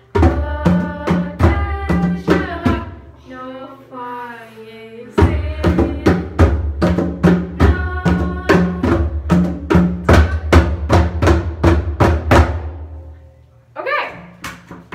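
Conga drums played with the hands by several players, a fast, even rhythm of open-tone strokes. The drumming breaks off for about two seconds around three seconds in, then picks up again and dies away about 13 s in.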